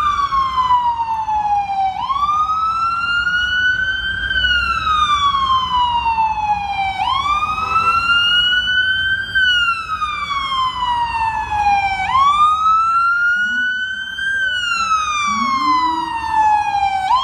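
Ambulance's electronic siren sounding a slow wail, its pitch climbing and then falling about every five seconds, over the low rumble of traffic.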